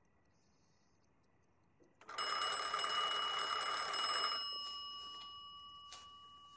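A bell rings suddenly for about two seconds, a rapid metallic rattle with clear ringing tones, then stops and its tone fades away slowly.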